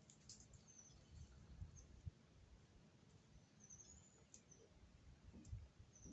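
Near silence, with a few faint, short, high bird chirps and some soft low thumps.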